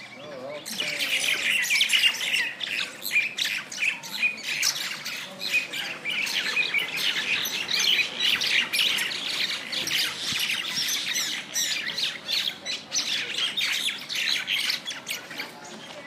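Common mynas fighting on the ground, giving a dense, continuous racket of harsh squawks and screeches that starts about a second in.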